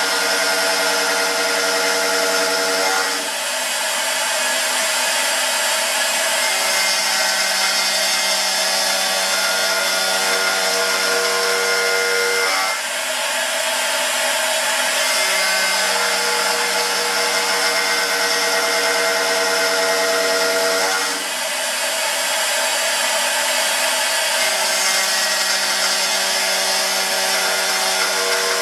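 CNC router spindle running with a carbide end mill slotting aluminum: a steady whine over cutting noise, without bogging down. The tone shifts about every nine seconds as the cutter changes direction along the slot.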